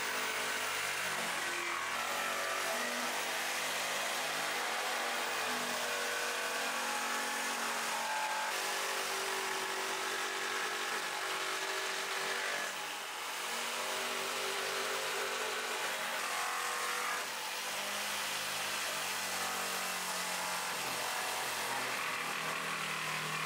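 Corded jigsaw cutting a circle through the wooden slats of a table top. The motor runs steadily, its pitch shifting as the blade loads up and eases off, with a few brief dips in the sound.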